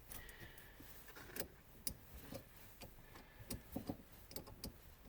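Faint, irregular small clicks and light taps of hands working a spade terminal off trailer wiring beside a car battery.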